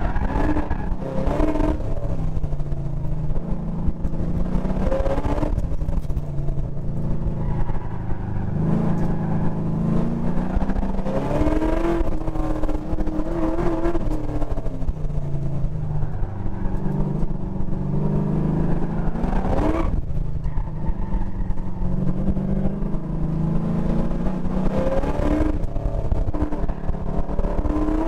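GM LS7 7.0-litre V8 of a track car, heard onboard as it is driven hard around an autocross course; the engine note climbs and drops again and again as it accelerates and lifts off between corners, with a quick sharp climb in pitch about two-thirds of the way through.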